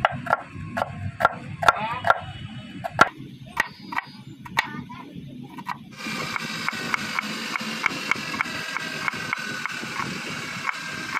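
Handmade knife chopping an onion on a wooden board: a run of sharp knocks as the blade strikes the board. They come unevenly at first, then settle into a steady rhythm of about four strokes a second, and an even background hiss sets in at the same point.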